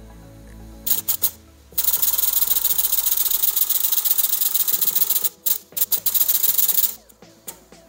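Shop press hissing as it presses the center pin out of a Dana 300 transfer case: a few short hisses about a second in, then a steady hiss for about five seconds with a brief break near the end.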